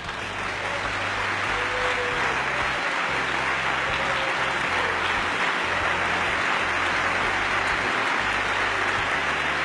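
A large audience clapping in a standing ovation. It swells in over the first second, then holds as a steady, dense applause.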